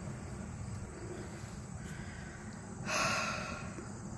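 Bare front hub and brake rotor of a 2010 Chevy Malibu spinning off the ground with a steady low rumble, a noise the owner pins on a failing right front wheel bearing. About three seconds in, a person exhales sharply.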